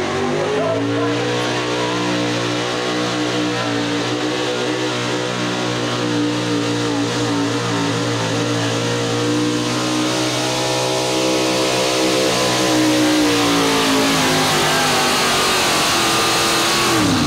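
A square-body Chevy pulling truck's engine held at high revs under full load as it drags a weight-transfer sled. The revs climb in the first second, hold steady, and drop off near the end as the pull finishes.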